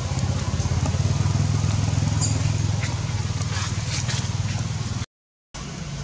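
Steady low hum, with a few faint high chirps partway through; the sound drops out completely for about half a second just after five seconds in.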